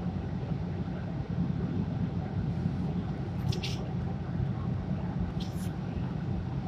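Isuzu Erga city bus (PJ-LV234L1) running, its diesel engine and drivetrain giving a steady low rumble, with two brief hisses, one midway and one near the end.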